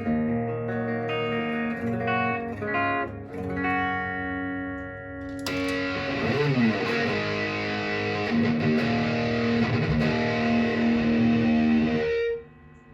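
Electric guitar played clean, in single notes and chords. About five seconds in it switches to a thick, hissy distorted tone from a GBS AFD Distortion Custom pedal, which emulates the crunch of a Marshall AFD amp. The distorted playing stops abruptly near the end.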